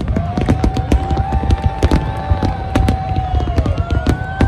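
Fireworks display going off in rapid succession: a dense run of sharp bangs and crackles over a heavy low rumble.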